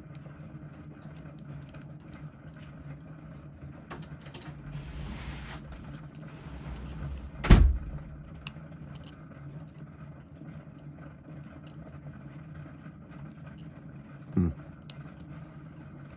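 Small tools clicking and tapping on a watchmaker's bench over a steady low hum, with a brief hiss around the middle, a sharp knock about seven and a half seconds in, and a softer knock near the end.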